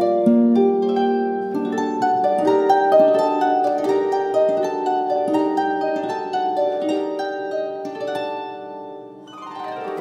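Background music of quick, plucked-string notes in a flowing melody, dipping in level a little before the end before the next phrase comes in.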